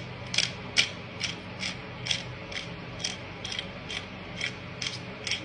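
Hand salt grinder being twisted, its grinding mechanism clicking in an even rhythm about twice a second.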